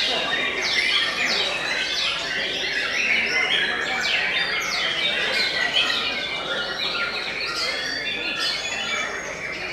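White-rumped shamas singing, many birds at once, a dense tangle of quick chirps and downward-sweeping whistled notes.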